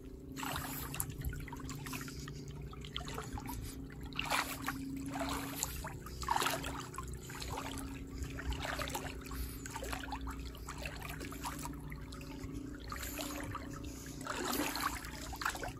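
Shallow seawater splashing and trickling, with uneven small splashes every second or two.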